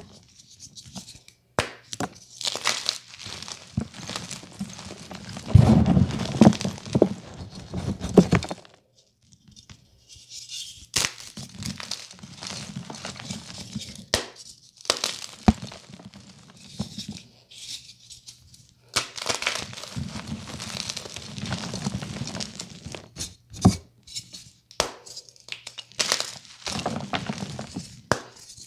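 Blue-dyed gym chalk blocks crushed and crumbled between bare hands: irregular crunching and crackling with sharp little snaps as chunks break and grind into powder, stopping briefly twice.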